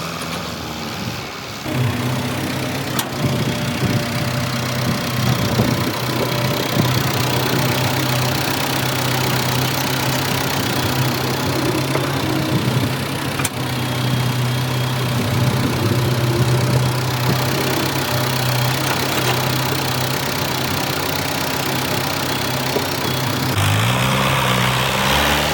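Heavy engine-driven machinery running steadily with a constant low hum and a dense clatter, the hum stepping up in pitch about two seconds before the end.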